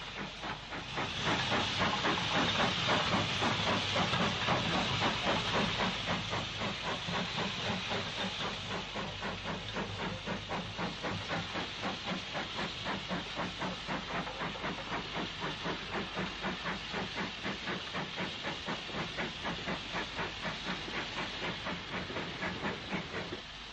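A 7F goods steam locomotive pulls away with its train, the exhaust beating in a steady quick rhythm of about three beats a second. A loud hiss of steam runs with it and eases a little after the first few seconds.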